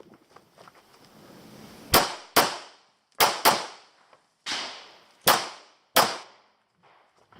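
Pistol shots from an IPSC stage: about seven sharp reports, each with a short ringing tail. They come as two quick pairs, then three single shots a little under a second apart.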